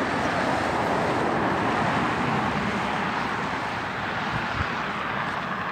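A car driving past on the highway: tyre and road noise that swells to its loudest a second or two in, then slowly fades.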